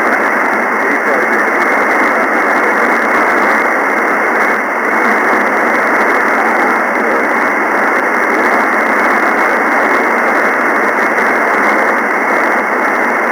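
Steady single-sideband receiver static: the hiss of an SDRplay receiver tuned to the FO-29 satellite's linear transponder downlink, with no station coming through clearly. The hiss is cut off sharply above and below a narrow voice-width band.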